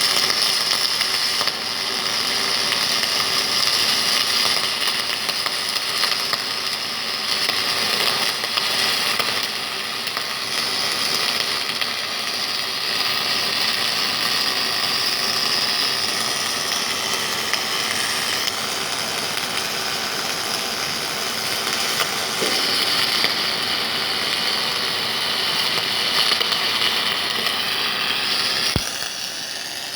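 Welding robot at work: a loud, steady hissing noise from the welding and the machine, which shifts slightly about halfway through and drops after a sharp click near the end.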